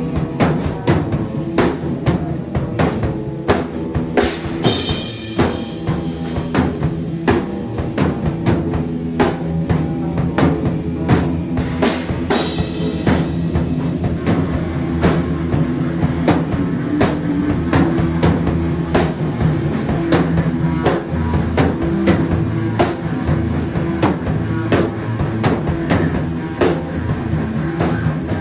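Music with a drum kit keeping a steady beat over sustained low bass notes, with cymbal crashes about five and twelve seconds in.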